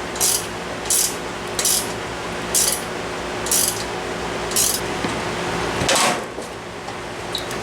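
Ratchet wrench tightening nuts, a short burst of clicking on each return stroke, about once a second. A louder knock comes about six seconds in.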